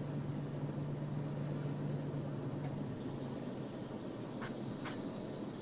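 Steady low hum and hiss of a car interior heard over a video-call connection. A low hum drops away about halfway, and two faint clicks come near the end.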